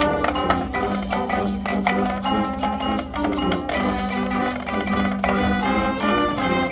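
High school marching band playing its field show music, with sustained pitched notes over steady percussion hits.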